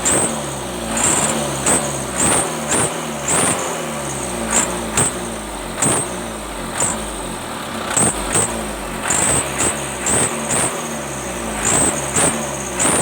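Mitsubishi Canter truck's diesel engine blipped over and over through an aftermarket exhaust: quick irregular throttle stabs, a burst of sound with a high hiss on each, the pitch dropping back between them.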